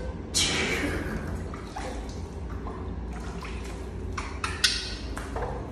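Water splashing and dripping in a plastic basin as a wet baby monkey is dipped and rinsed, in irregular short splashes, the strongest just after the start and a cluster about four to five seconds in.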